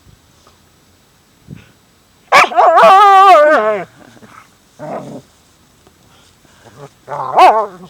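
A dog vocalizing: a long, wavering, pitched call about a second and a half long, then a short bark a second later, and another short pitched call near the end.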